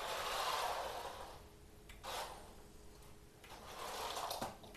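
Yuan Plan Skyline GT-R remote-control drift car driving on a hardwood floor: its small electric motor whirring and hard tyres sliding, in three bursts as the throttle is worked, with a small click near the end.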